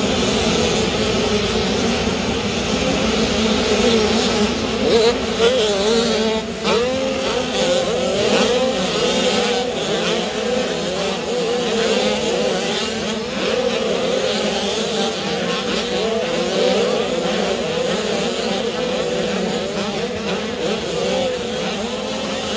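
A pack of motocross bikes racing, many engines revving up and down at once, their pitches rising and falling and overlapping as the riders accelerate and jump.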